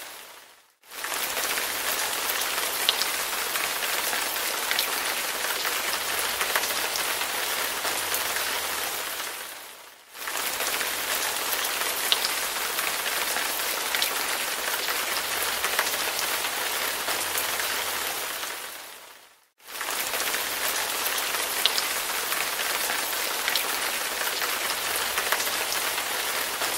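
Steady rain falling, with scattered louder single drops. It fades out and straight back in about every nine and a half seconds: a short rain recording played on a loop.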